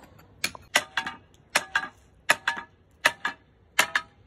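Hammer striking a steel cold chisel to chip concrete: sharp, ringing metal strikes about every three-quarters of a second, each followed closely by a lighter second knock.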